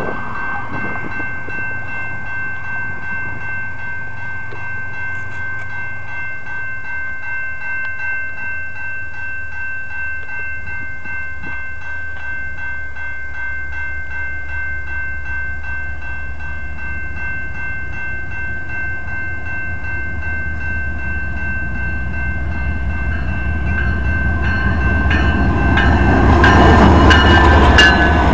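Railroad crossing warning bell ringing steadily and rapidly. A freight train's low rumble grows louder over the last several seconds as it reaches the crossing.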